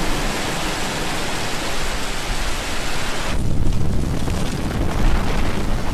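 Rocket engine noise from a Falcon 9 lifting off, its first stage's nine Merlin engines at full thrust: a dense, steady hiss-like roar. About three and a half seconds in, the high hiss drops away and a deeper rumble takes over.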